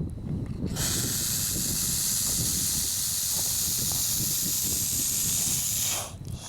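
Bull snake giving one long defensive hiss of about five seconds, air forced out of its lungs through its glottis, a loud rasping hiss similar to a rattlesnake's. It starts just under a second in and cuts off sharply near the end, with the next hiss starting right after.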